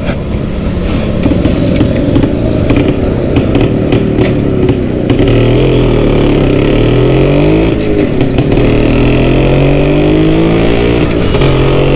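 A 1978 Yezdi B Type's 250 cc single-cylinder two-stroke engine running as the motorcycle is ridden, its pitch climbing, dropping back and climbing again. The worn-out silencer gives a tinny, tin-box exhaust note that the owner says needs replacing.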